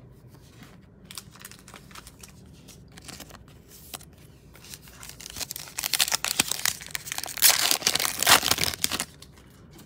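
Foil wrapper of a football trading-card pack crinkling and tearing as it is ripped open by hand. It starts with a few seconds of faint clicks from cards being handled, and the loud crinkling comes in about halfway through.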